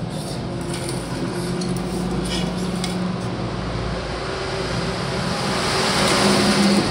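An engine or motor running with a steady low hum, growing louder near the end.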